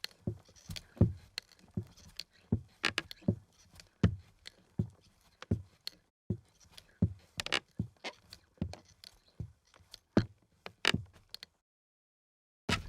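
Footsteps of flip-flops on a creaky wooden floor, an even walking pace of about two steps a second. The steps stop abruptly about eleven and a half seconds in.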